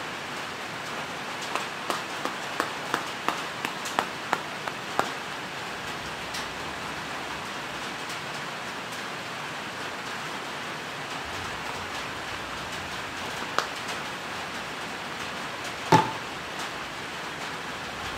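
Steady rain on a metal shop roof. In the first five seconds a tin of Copenhagen dip is packed with a run of about eight quick taps, and there is one louder knock near the end.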